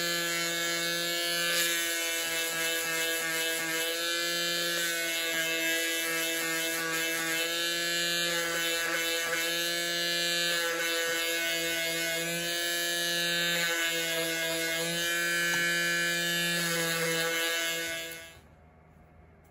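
Black & Decker Mouse electric detail sander running steadily with a high, even hum as a small cherry wood block is held against its pad. It stops abruptly near the end.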